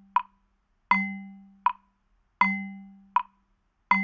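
Metronome beat at about 80 beats a minute, one stroke roughly every three-quarters of a second, playing a quarter-note and quarter-rest rhythm. The beats alternate: a ringing pitched tone that fades slowly on each note, and a short dry tick alone on each rest.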